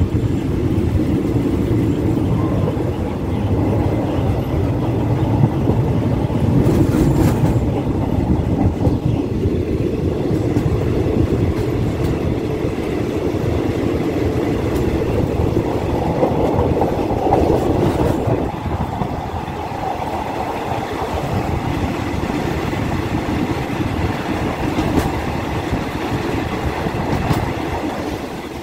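Passenger train running on the rails, heard from an open carriage window: a steady rumble of wheels on track mixed with rushing air. There is a short clatter about seven seconds in, and the sound eases slightly a little past halfway.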